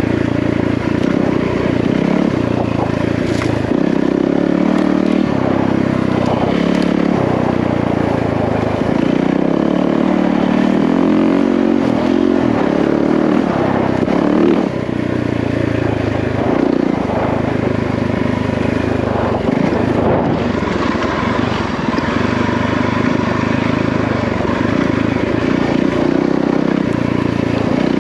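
Yamaha WR450F single-cylinder four-stroke trail bike being ridden off-road, its engine note rising and falling with the throttle and gear changes.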